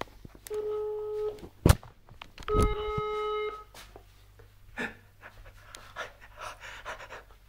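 Telephone ringback tone from a mobile phone's earpiece: two steady beeps, each about a second long, about two seconds apart, as the call rings out unanswered. A sharp knock falls between the two beeps.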